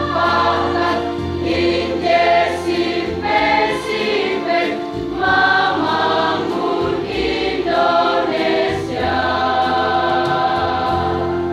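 High school choir singing a song in several voices, with notes changing every second or so, then holding a long final chord for the last few seconds.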